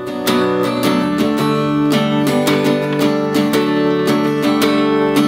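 Tanglewood acoustic guitar strummed in a steady rhythm, its chords ringing between the strokes.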